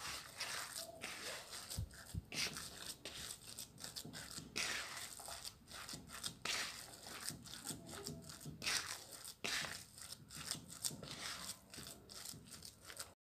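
Hands mixing and squeezing a moist, crumbly almond-and-sesame dough in a plastic bowl: a steady run of irregular rustling, squeezing strokes, with a couple of dull bumps about two seconds in.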